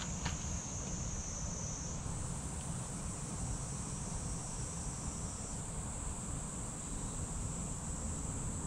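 Steady, high-pitched chorus of insects, its tone shifting slightly about two seconds in and again near the middle, over a low steady rumble.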